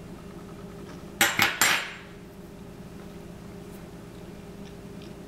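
Metal fork clinking against a ceramic plate: three quick clinks a little over a second in, over a steady low hum.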